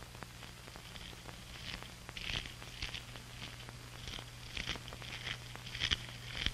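Mountain pine beetle chewing in pine wood, amplified: faint irregular crunching clicks and short crackles over a steady low hum.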